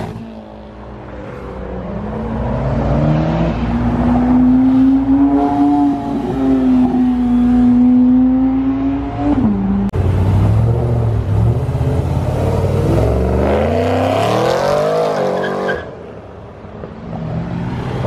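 Performance cars accelerating hard as they pull away: one engine note climbs steadily for several seconds and drops off as the driver lifts. Then a second car revs up, its note rising and then fading as it leaves.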